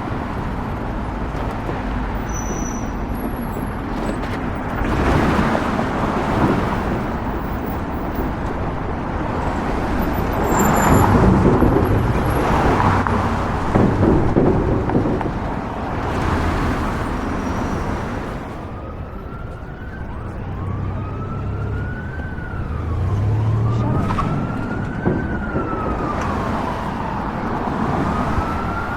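City street traffic: a steady rush of vehicles with several louder passes swelling and fading. About two-thirds of the way through, an emergency vehicle siren begins wailing in slow rising and falling sweeps, about one every three seconds, over the traffic.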